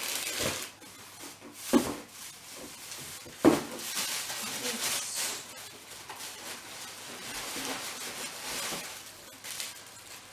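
Plastic shopping bags rustling and crinkling as things are rummaged out of a cardboard box, with two sharp knocks, about two seconds and three and a half seconds in.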